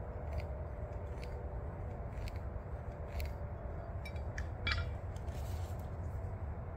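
Short scratchy scrapes on a wooden post, about one a second, with a louder cluster about four to five seconds in, as the post is marked by hand at the laser line; a steady low rumble runs underneath.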